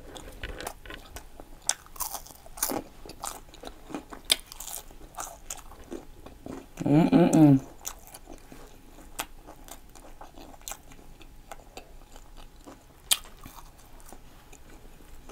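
Close-up chewing and crunching of crispy, extra-well-done French fries: many short crisp crunches scattered throughout. A brief vocal hum comes about seven seconds in.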